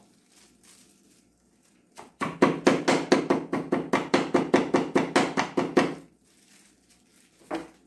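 Cloves in a small plastic bag being pounded on a cloth-covered wooden board: a fast, even run of knocks, about six a second, lasting about four seconds, then one more knock near the end.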